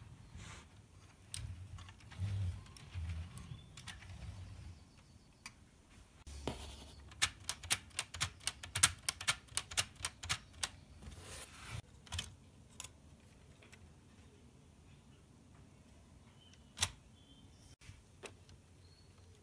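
Small hard plastic clicks and knocks from a Lego Technic car model being handled. In the middle comes a quick run of sharp clicks, about five a second for some three seconds, and a single sharp click follows near the end.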